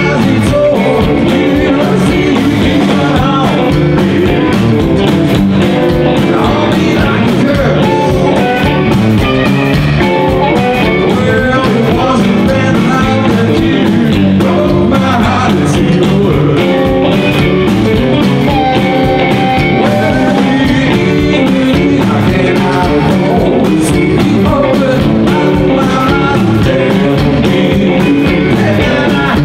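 Live rock and roll band playing: a man singing lead over electric guitars, upright double bass and drums. About two-thirds of the way through, one long note is held.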